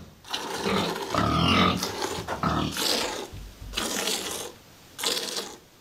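A farm animal in the barn calling: one long, low call from about a second in, followed by shorter noisy sounds about a second apart.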